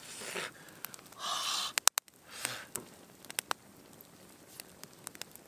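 A man's sharp breaths and sniffs, three short bursts in the first few seconds as he rubs his face, over the scattered pops and crackles of a wood campfire.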